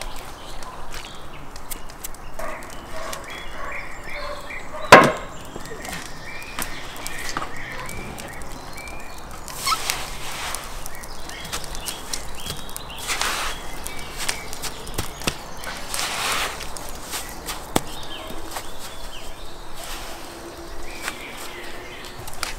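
Coarse salt crunching and swishing as handfuls are scooped and packed around a whole salmon on a metal baking tray, with scattered small clicks. A single sharp knock about five seconds in is the loudest sound.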